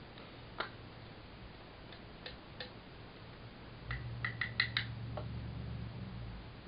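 Light clicks and taps from handling makeup items: single clicks here and there, then a quick run of about five a little after four seconds in. A low rumble of handling noise runs at the same time for about two seconds.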